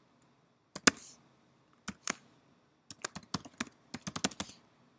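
Keystrokes on a computer keyboard typing a shell command: a few scattered taps, one of them sharp and louder, then a quick run of keystrokes from about three seconds in.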